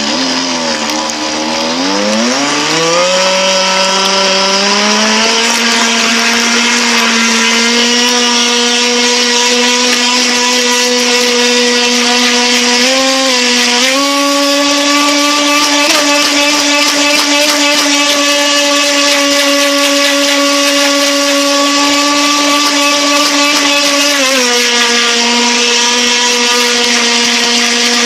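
FT009 RC boat's brushless electric motor whining at speed. The pitch climbs over the first few seconds as the throttle opens, then holds steady, stepping up a little about halfway, dropping near the end and rising again.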